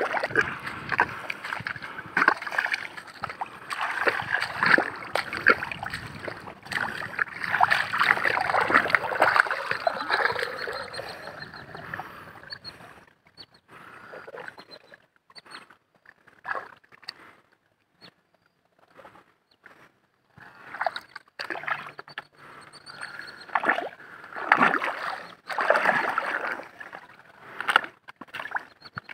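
Shallow muddy water splashing and sloshing as a person wades and digs by hand in the mud under a log for a crab hole. Irregular and busy for the first dozen seconds, then separate scattered splashes with a short quiet spell, then busier again near the end.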